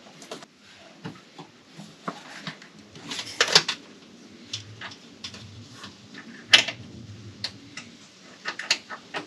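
Scattered light clicks and taps of metal ring terminals and wiring being handled on a vehicle ground screw, with a cluster of clicks about three seconds in, a sharper click partway through and a few more near the end.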